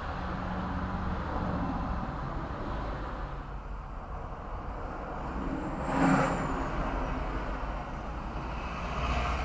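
Road traffic recorded through a dash camera's built-in microphone: a steady low rumble of vehicles, with one brief louder swell about six seconds in.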